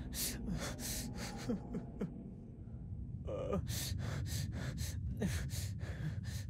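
A man gasping and panting in short, rapid breaths, about three or four a second, with a few brief falling whimpers. The breathing stops for about a second two seconds in, then starts again. A low steady hum runs underneath.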